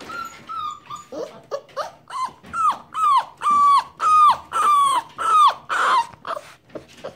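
A puppy whining over and over: short, high-pitched cries about two a second, each dropping in pitch at its end, getting louder after about two seconds in.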